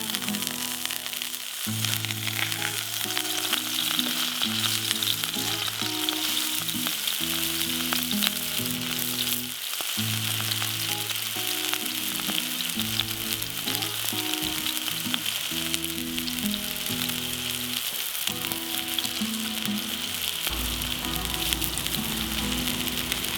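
Food frying with a steady sizzle, under slow background music of held notes.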